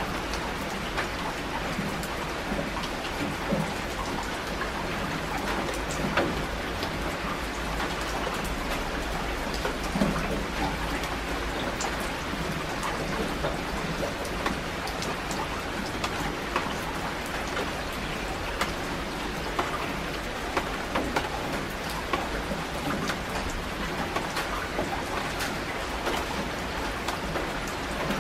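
Steady rain falling on shallow water: a continuous hiss with many separate raindrop splashes on the surface.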